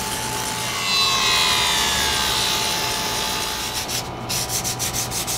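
A steel ring is filed and sanded by hand with a rubbing, rasping sound. In the first couple of seconds a machine whine falls in pitch as it winds down. Near the end there are quick, even strokes, several a second.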